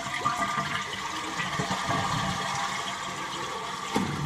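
Toilet being test-flushed: water rushing steadily through the tank and bowl, with a short knock near the end.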